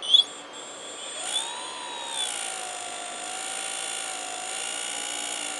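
Turnigy Aerodrive 3542 800Kv brushless outrunner motor running up with a sudden start, its whine rising and dipping in pitch for a couple of seconds before settling into a steady whine. It doesn't sound right: the owner thinks the bearings are bad.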